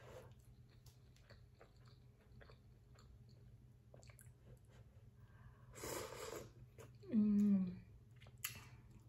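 Close-miked chewing of a mouthful of fried rice: soft, wet mouth clicks. About six seconds in comes a breath, followed by a short hummed "mmm" that falls in pitch, the loudest sound.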